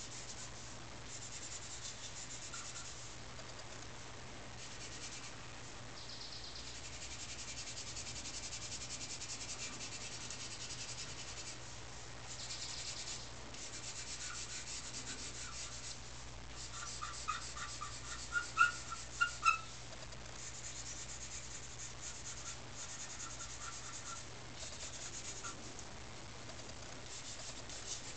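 Charcoal pencil scratching across drawing paper in quick, repeated hair strokes, a dry hiss that comes and goes with each run of strokes. About two-thirds of the way through, a few short, sharp high-pitched chirps stand out above the scratching.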